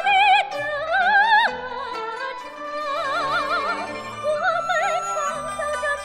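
Soprano singing a slow lyrical phrase in a bel canto style, holding notes with a wide vibrato, accompanied by a Chinese traditional orchestra.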